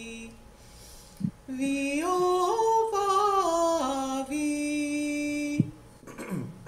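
A woman's voice singing a warm-up exercise: a held note fades out, then after a short pause her voice steps up in pitch through several notes and back down, holds a steady note for over a second, and stops abruptly.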